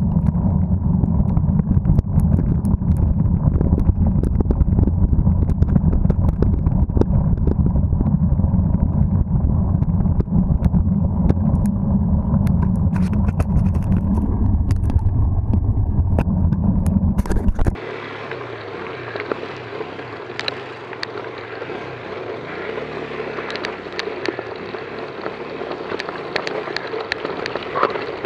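A mountain bike ridden along a dirt road, heard through an action camera's microphone: a loud low rumble of wind buffeting the mic, with scattered clicks and scrapes. About two-thirds in the sound cuts abruptly to a quieter, even crackling hiss of tyres rolling over dirt and gravel.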